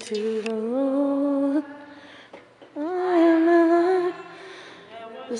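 A woman singing a slow gospel song solo, holding two long notes with vibrato. There is a short break between them, and the second note is higher.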